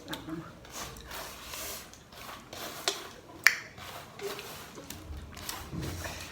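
Close-up eating noises: a string of small mouth clicks and short noisy breaths, with one sharp click about three and a half seconds in.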